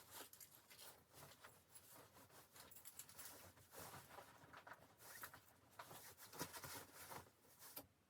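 Faint irregular rustling and small clicks, as of something being handled, stopping abruptly near the end.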